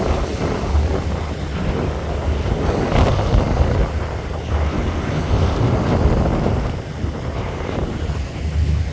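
Wind buffeting the microphone over the steady rumble of a harbour tour boat under way, with water noise.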